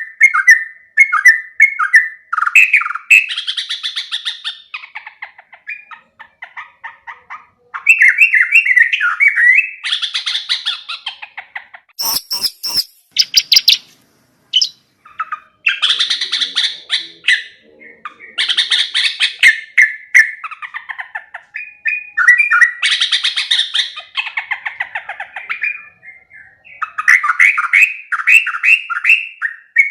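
Yellow-vented bulbul singing nonstop: quick, bubbly, chattering whistled phrases one after another, with a brief harsh, scratchy rattle about twelve seconds in.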